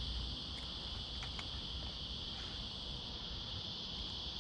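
Insects droning steadily at a high pitch, with a few faint ticks in the first second and a half.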